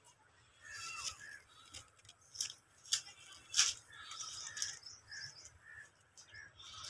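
Footsteps and donkey hooves crunching and scuffing in dry grass and fallen leaves, with a few sharp crunches standing out. Birds chirp in short repeated notes behind them.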